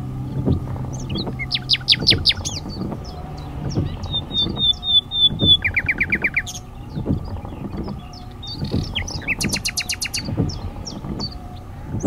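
Common nightingale singing: separate phrases of fast repeated notes and trills, each phrase different from the last. Beneath the song runs a steady series of low knocks about once a second.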